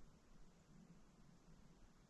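Near silence: faint low background noise only.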